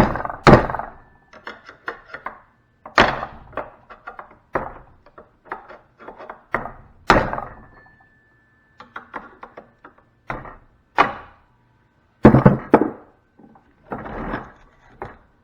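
Irregular series of hard knocks and thuds, about a dozen strikes, some with a brief metallic ring, from banging on a large sand-filled cartridge fuse while taking it apart.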